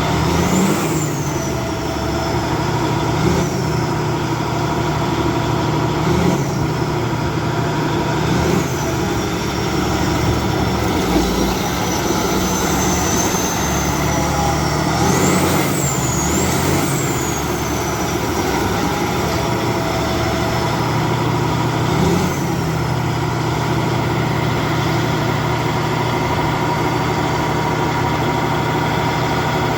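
Caterpillar D8N bulldozer's turbocharged diesel engine running, revved up several times, with a high whine that rises with each rev and dies away as it settles back.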